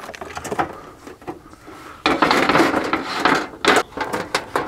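Sheet-metal folding two-burner propane camp stove being lifted out of a drawer and set open on a swing-down table, its lid, side panels and grate clattering and rattling. There are a few light clicks, then about two seconds in a dense run of metal knocks and rattles.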